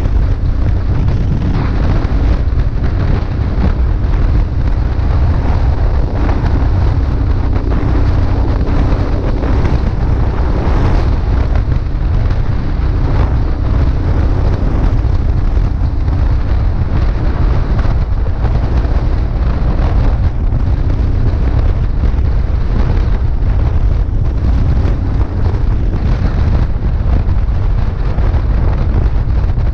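Wind buffeting the microphone of a motorcycle-mounted camera at road speed, a heavy steady rumble, with the motorcycle's engine running underneath as a faint steady hum.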